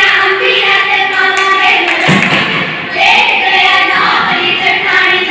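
A group of female voices singing a Punjabi folk song in chorus for a giddha dance, with a heavy thump about two seconds in.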